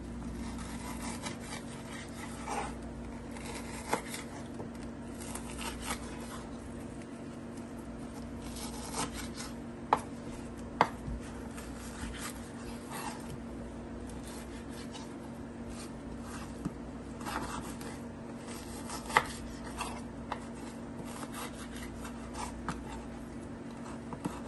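Quiet kitchen food-preparation sounds: soft rubbing and scraping with a few sharp knocks, over a steady low hum.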